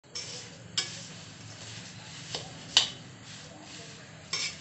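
A spatula stirring thin poha chivda in a steel kadhai: a steady scraping rustle of the dry flakes, with a few sharp clinks of the spatula against the pan, the loudest a little under three seconds in.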